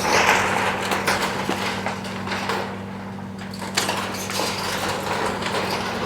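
A heavy machine's engine running steadily while a car body is crushed, with crunching, scraping and sharp knocks of metal and glass.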